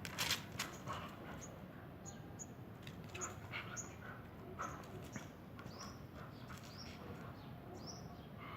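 Birds chirping in the background, short high calls repeating every second or so, with a few sharp clicks near the start.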